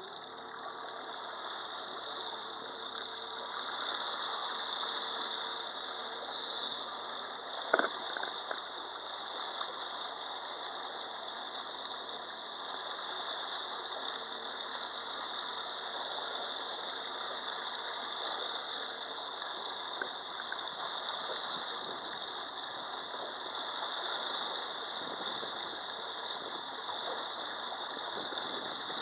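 Yamaha VMAX SHO 90 hp outboard running with the boat under way: a steady rattly mechanical noise mixed with rushing water, and one sharp knock about eight seconds in.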